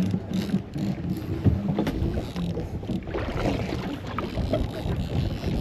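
Ambience on the deck of a fishing boat: a steady rumble from the running boat, with wind on the microphone and small scattered knocks.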